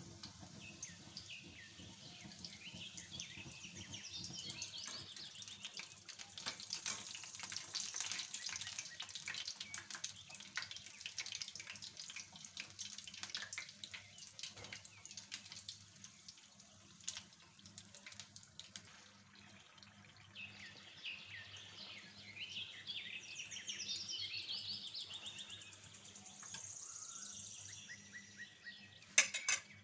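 Spring rolls deep-frying in hot oil: a steady sizzle full of small crackles and pops. Near the end come a few sharp metallic clinks as a wire skimmer lifts them from the pan.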